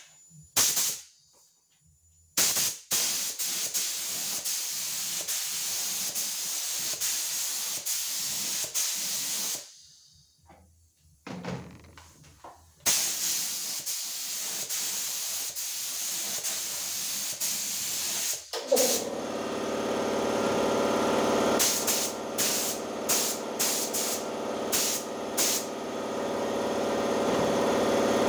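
Lacquer being sprayed onto a chrome-plated part: a short hiss, then two long, even hissing passes of several seconds with a pause between. About two-thirds of the way in, a motor starts and runs with a steady hum while shorter spray bursts go on over it.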